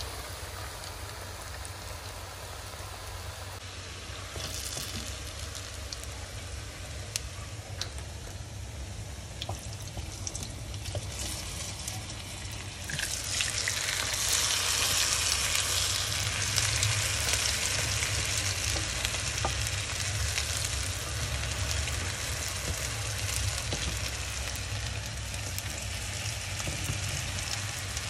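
Steady sizzling hiss with fine crackle over a low hum, growing clearly louder about 13 seconds in.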